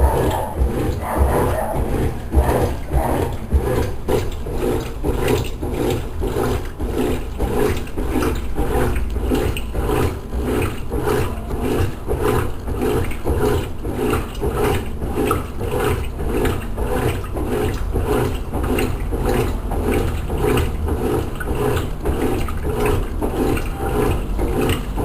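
Consul Maré Super 10 kg washing machine washing a load in water: its wash mechanism works back and forth in an even rhythm of about two strokes a second, with mechanical clicking and water sloshing.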